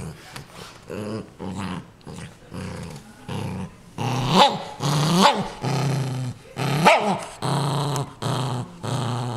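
Small dog growling in a steady series of low pulses while guarding a new plush toy. From about four seconds in the growls get louder, broken by three short, higher-pitched snarls.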